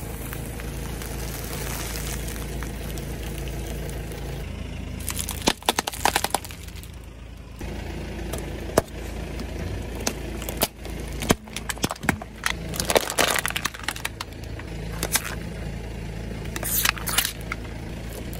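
A car tyre rolling over and crushing packaged snacks and plastic jars: several runs of crackling and snapping, the first about five seconds in and the last near the end, over the low steady hum of the car's engine.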